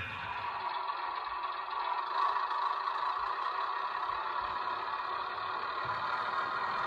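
Model train running along the layout's track: a steady mechanical hum of motor and wheels.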